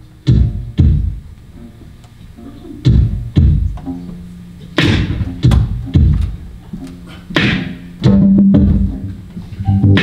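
Live instrumental music: acoustic guitar with keyboard, punctuated by heavy low thumps. A sustained organ chord comes in about eight seconds in.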